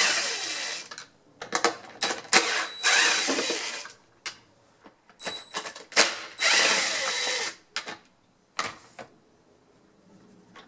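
Cordless power screwdriver with a Torx bit backing screws out of a plastic leaf-blower cover, whirring in three runs of a second or more, with short clicks and taps between them.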